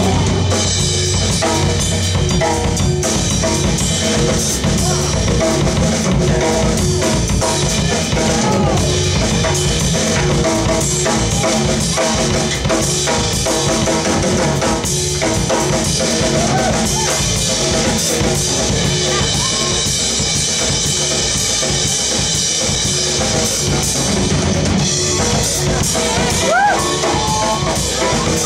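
Live band playing, with the drum kit to the fore: snare, rimshots and bass drum driving a dense, steady beat.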